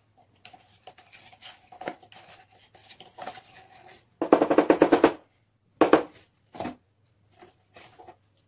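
Plastic cup being squeezed and emptied of silver epoxy resin: soft rustling, then a loud burst of rapid crackling about four seconds in and two short crackles near six and a half seconds.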